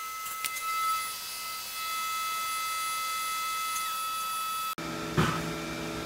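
Five-axis CNC mill spindle cutting aluminum with a long, slender 3 mm end mill: a steady high-pitched whine made of several held tones. Near the end it changes abruptly to a lower machine hum with a few clicks.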